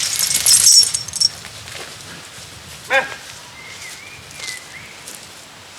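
A single short yelping animal call about three seconds in, after a burst of crackling and rustling at the start, with faint bird whistles later on.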